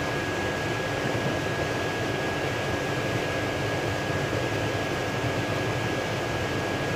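Steady background hiss, even and unchanging, with a faint high steady whine running through it.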